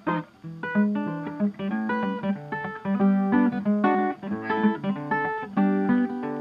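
Background music: a plucked acoustic guitar playing a quick run of notes.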